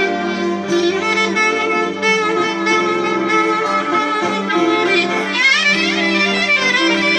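Live Greek folk band: clarinet leading the melody over violin and laouto, with a run of rising ornamental slides about five seconds in.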